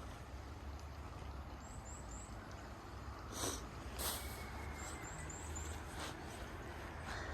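Small birds giving short, high chirps in two quick runs of three or four, over a low steady rumble, with two brief rustling noises in the middle.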